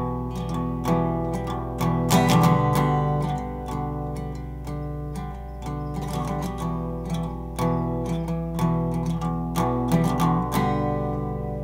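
Acoustic guitar background music: plucked and strummed chords in a steady rhythm, with the playing stopping shortly before the end and the last chord ringing out.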